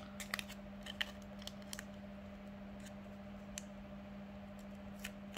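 Aluminium foil crinkling in short, scattered crackles as it is pressed and folded by hand around a USB-C adapter, over a steady low hum.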